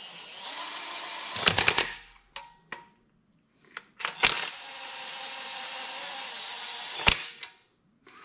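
Cordless DeWalt impact gun on low power running cylinder-head bolts down into an engine block, in two spins of a few seconds each with short blips between. Each spin ends in a quick rattle of hammering clicks as the bolt seats.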